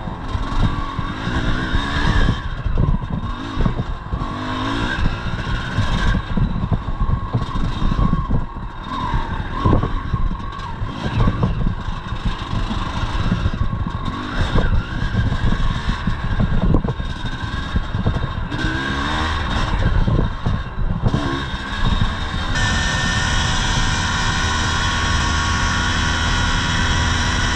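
A 1983 Yamaha IT 250's two-stroke single-cylinder engine revving up and down hard on a rough trail, with the bike clattering over bumps. About 22 seconds in, the sound changes abruptly to a steady, even drone.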